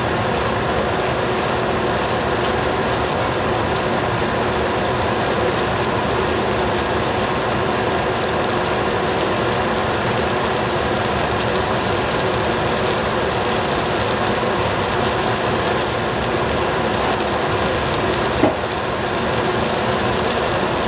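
Steady hiss and hum from the stove as a pot of bok choy, sweet peas and shiitake mushrooms cooks over a gas burner, with one short knock near the end.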